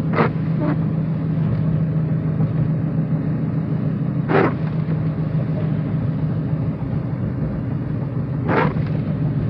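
Steady low drone of a car driving, heard from inside the cabin. Three short swishes about four seconds apart are the windshield wipers sweeping on intermittent over a rain-spotted windshield.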